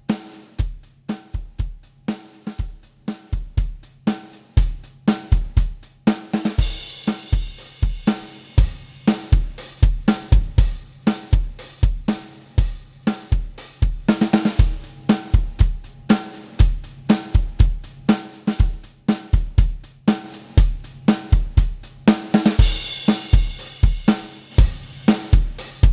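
Recorded drum kit loop of kick, snare and hi-hats in a steady beat, with a cymbal crash about every eight seconds, played back through a parallel compressor plugin to demonstrate its compression.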